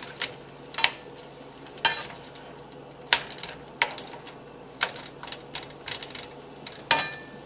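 Chops frying in a pan, sizzling steadily, with sharp irregular clinks of a utensil against the pan as they are turned over, the meat close to burning.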